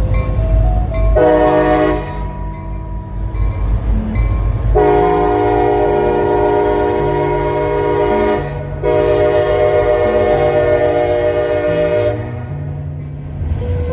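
EMD SD40-2 diesel locomotive sounding its multi-chime air horn: a short blast about a second in, then two long blasts, over the steady rumble of its diesel engine.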